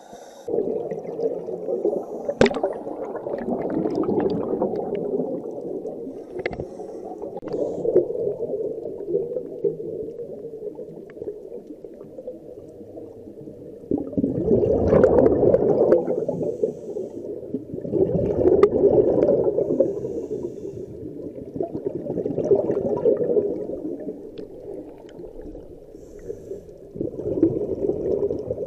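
A scuba diver's exhaled bubbles from the regulator, a gurgling rush that swells and fades about every four seconds, heard muffled through the action camera's underwater housing. Two sharp clicks come in the first seven seconds.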